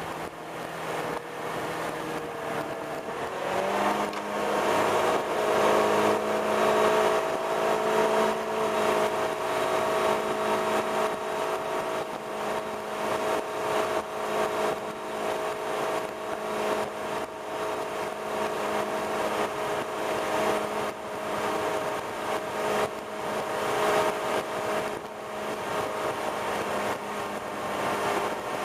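350 cubic-inch V8 MerCruiser boat engine running under way over the rush of the churning wake. Its pitch rises about four seconds in, then holds steady.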